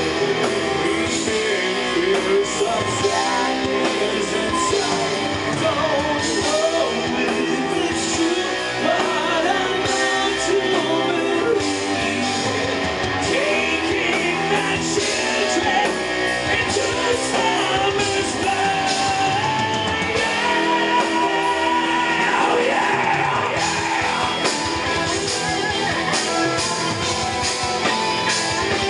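Live metal band performing: electric guitar, bass and drums with a lead singer's vocals over them, heard through a handheld camera's microphone in the audience.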